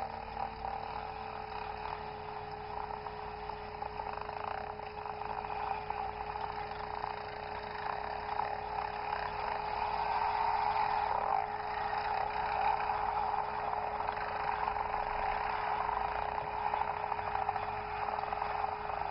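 ATV engines running, among them a 2001 Yamaha Grizzly 660's single-cylinder engine, getting louder from about halfway through, with a steady high whine throughout.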